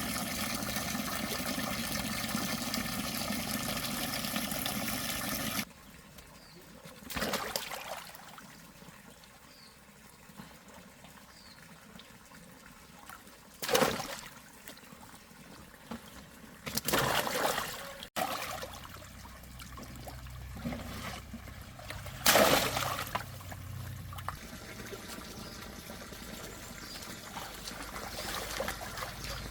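Water running steadily, cut off suddenly about six seconds in. Then quieter water with a few brief, louder bursts.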